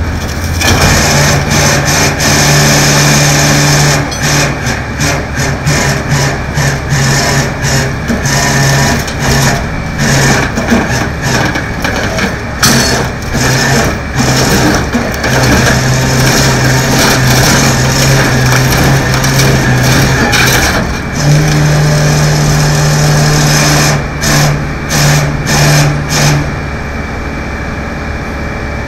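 Heavy truck engine running hard, with its engine note cutting in and out in stretches of a few seconds, under a rough mix of scraping and clanking metal as an overturned car is dragged and turned on the pavement. The engine note drops away near the end.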